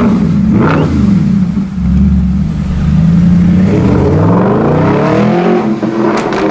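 Mercedes-Benz SLS AMG's 6.2-litre V8 running through an aftermarket exhaust: a steady burble, then a rev that climbs from about four seconds in and falls away, with two sharp pops from the exhaust near the end.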